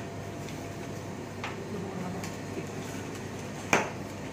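Sharp clicks of catheter equipment being handled on an instrument table, a faint one about one and a half seconds in and a loud one near the end, over a steady background hum.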